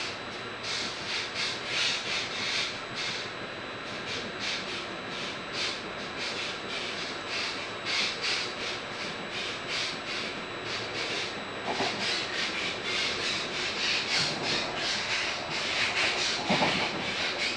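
Train running, heard from inside a Vivalto double-deck passenger coach: a steady rolling rush of wheels on rails with a rapid, uneven rustle and a faint steady high whine.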